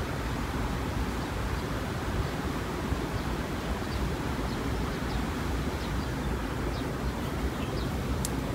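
Steady low rumble of wind buffeting the microphone outdoors, with faint, short high-pitched chirps scattered throughout and a single click near the end.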